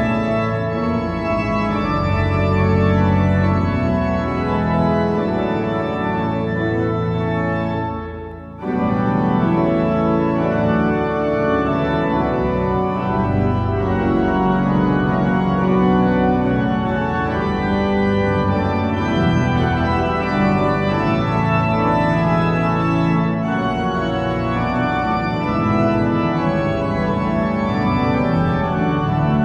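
Three-manual Weimbs pipe organ (47 stops) playing a loud, festive piece in full sustained chords. About eight seconds in, the chord is released and dies away briefly in the large church's reverberation before the playing resumes.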